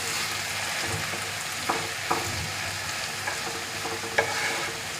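Chopped tomatoes and onions sizzling in a pan while being stirred, with three short knocks of the spoon against the pan.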